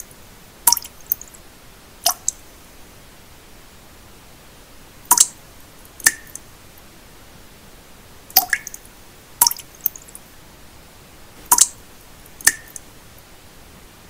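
Water drops falling one at a time into still water, each landing as a short plink with a brief ring, about eight in all and often in pairs about a second apart. Under them runs a steady, even hiss of pink noise.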